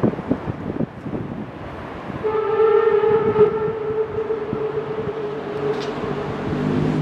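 Whistle of a class 52 steam locomotive: one long steady blast that starts about two seconds in and fades near the end.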